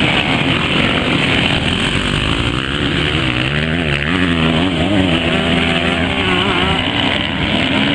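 Off-road dirt-bike engines running hard at high revs, one engine's pitch rising and falling repeatedly as the throttle is worked, loudest through the middle of the stretch.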